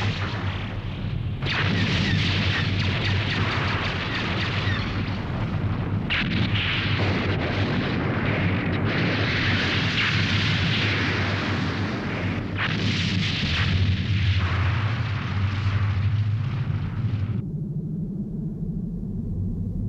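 Cartoon sci-fi explosion sound effects: a continuous loud rumbling blast noise over a low steady hum, swelling and changing every few seconds. The hiss in the upper range drops away a couple of seconds before the end, leaving the low rumble.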